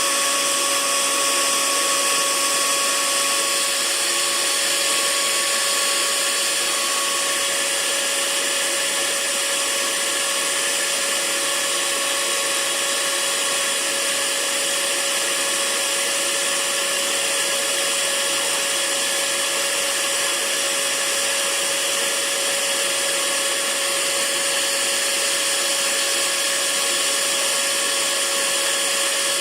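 Hair dryer running steadily: an even rushing hiss of air with a faint steady hum from the motor, unchanging throughout.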